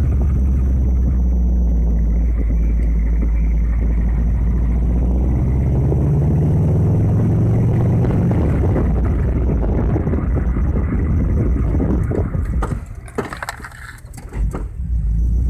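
Honda Civic being driven, with a steady low road and drivetrain rumble. Near the end the rumble falls away and a few sharp knocks sound, the suspension knock under braking and accelerating that the owner is chasing.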